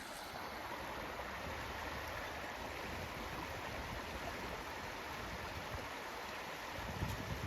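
A babbling brook running high and fast with rain runoff, a steady rush of water.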